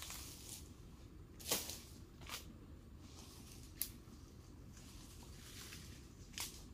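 Rustling and scraping of oil palm fronds during pruning, with a few short knocks: the loudest about one and a half seconds in, another soon after, and a sharp click near four seconds.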